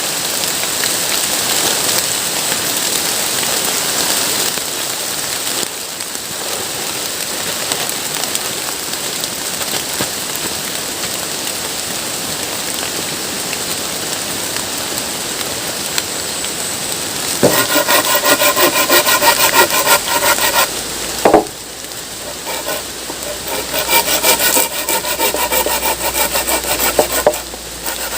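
Steady hiss of rain, then about two-thirds through a hand saw cutting wood in fast, even back-and-forth strokes, which stops briefly and starts again until the end.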